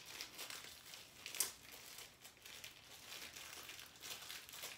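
Faint, irregular crinkling of a small packet of stick-in cupcake flower picks being handled and opened, with one sharper crackle about a second and a half in.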